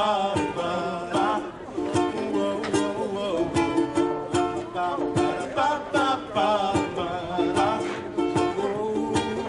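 Live band music in an instrumental break between sung lines: strummed strings over a steady beat, with a melody line on top.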